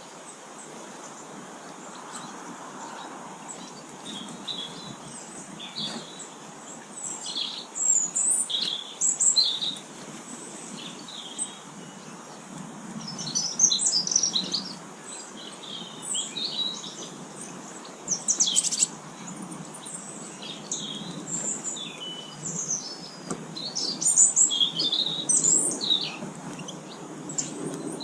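Small garden songbirds chirping and twittering, many short high calls in scattered bursts, some overlapping, over a steady low background hiss.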